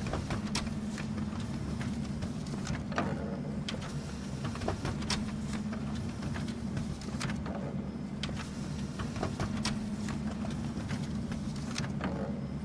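Office printer running with a steady low hum and irregular clicks as paper feeds through and comes out.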